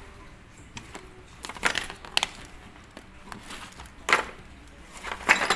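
Hands handling LED bulb parts and tools on a cardboard-covered bench, with a few sharp clicks and clatters of small hard objects being picked up and set down, about one and a half, two, four and five seconds in.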